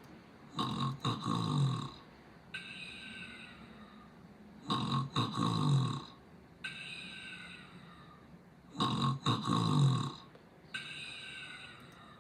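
Snoring: three loud, rasping inhaled snores about four seconds apart, each followed by a quieter exhale with a falling tone.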